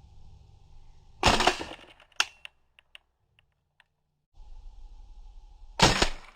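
Airsoft guns firing: two loud cracks, about a second in and near the end, with a sharp snap just after the first and a few light ticks in between.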